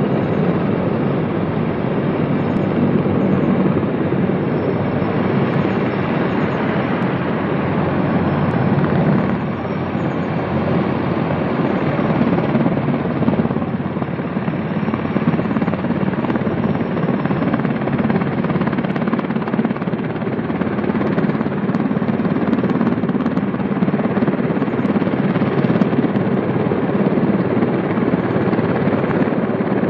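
Helicopter in flight, its rotor and engine making a steady drone.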